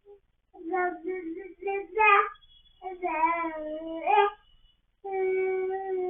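11-month-old baby babbling: a run of drawn-out, sing-song vocal sounds whose pitch wavers up and down, several in a row with short breaks between them.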